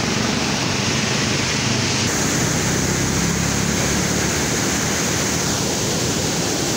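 Steady rush of muddy water swirling down a whirlpool into an outlet below the surface.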